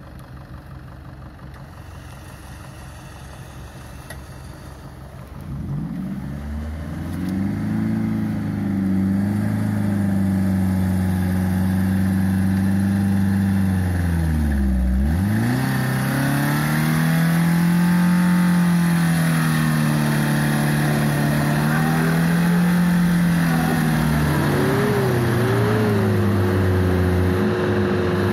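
A 4x4 SUV engine revving hard under load as it pulls through mud on a tow strap. It starts about five seconds in and its pitch rises and falls, with one sharp drop in revs about halfway before it climbs again.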